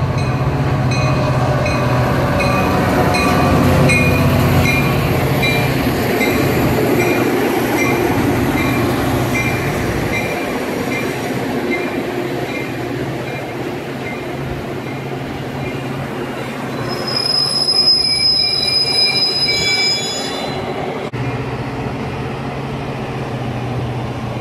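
Metra commuter train, a diesel locomotive hauling bilevel coaches, rolling through the station with a steady rumble and a bell ringing at an even beat for about the first twelve seconds. About seventeen seconds in, a high wheel or brake squeal sets in for some three seconds as the train slows.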